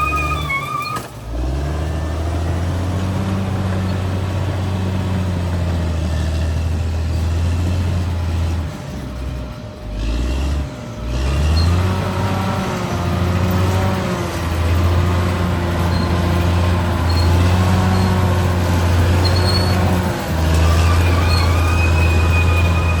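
Caterpillar D6R XL bulldozer's diesel engine working, with a high whine over the low engine note. The engine note drops briefly about a second in and again around nine to eleven seconds in, then comes back up.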